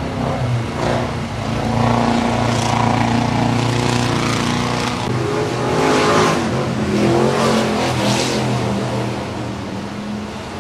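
Dirt late model race car engine running laps on the dirt oval, its note swelling and fading as it goes around the track.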